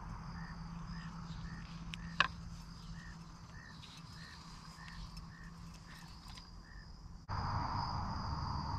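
Insects, crickets among them, calling in a steady high whine, with a short chirp repeating about twice a second. A single sharp click comes about two seconds in, and near the end the sound cuts abruptly to a louder hiss and rumble while the insect whine goes on.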